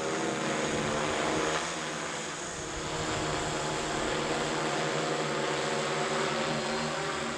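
UAV America Eagle XF multirotor drone's propellers buzzing steadily in flight, a stack of even tones. The level dips briefly about two seconds in, then comes back.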